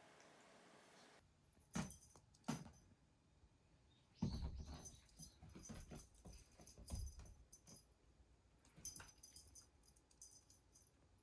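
Faint sounds of kittens moving about: a few soft thumps and scattered small, jingly clicks, the loudest thump about four seconds in.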